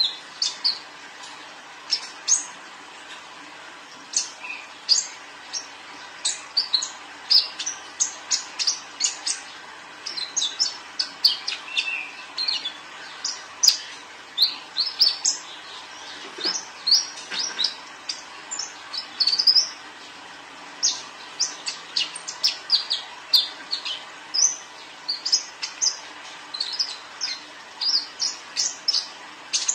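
A caged juvenile male sunbird (kolibri ninja) singing on and off in runs of rapid, thin, high chirps and twitters.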